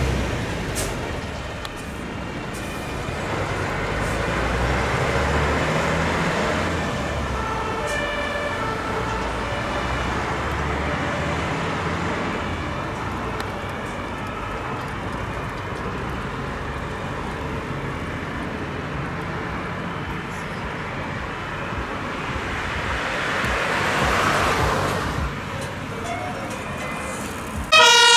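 Road traffic passing, with a heavy vehicle's engine and tyres swelling past in the first six seconds and another vehicle passing a few seconds before the end. From about eight to twelve seconds a German two-tone emergency siren sounds faintly in the distance.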